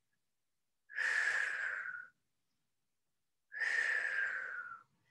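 A woman's two audible, effortful breaths, each a little over a second long, from the exertion of holding a core exercise.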